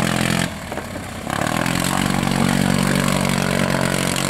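Two-cylinder diesel engine of a stripped-down Ligier microcar running under way. Its note falls away briefly about half a second in, then comes back with rising revs and runs steadily.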